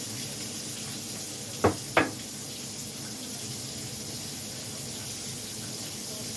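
Pork chops frying in hot grease, a steady sizzle, with two sharp knocks close together about a second and a half in.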